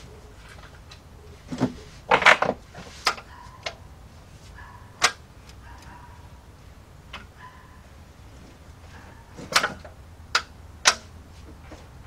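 Scattered sharp metallic clicks and knocks from a wrench on the crankshaft of a 2003 Dodge Grand Caravan's 3.3 V6, turned by hand from underneath to bring a piston up its bore with the cylinder head removed.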